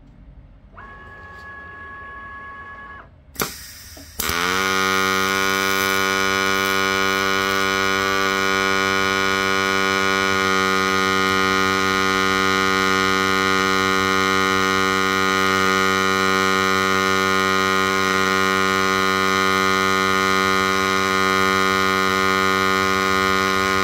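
DIY CNC MIG welder striking an arc about four seconds in, after a faint whine and a sharp click, then welding with a loud, steady electrical hum.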